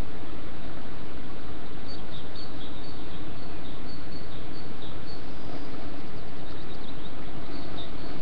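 Steady loud hiss from the nestbox webcam's microphone, with short high bird chirps repeating two or three times a second from about two seconds in.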